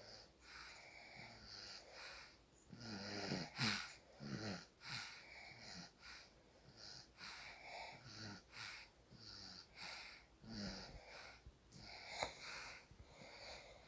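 Soft snoring of a sleeper: short, hissing breaths in quick succession, with a louder, rasping snore about four seconds in and another sharp one about twelve seconds in.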